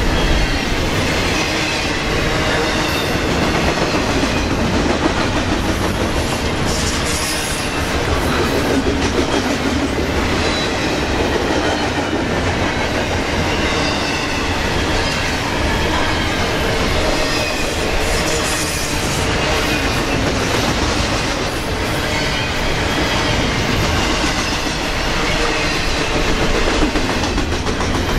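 Double-stack intermodal freight train's well cars rolling past at speed: a steady rumble of steel wheels on rail with clickety-clack over the rail joints and a faint, wavering high wheel squeal.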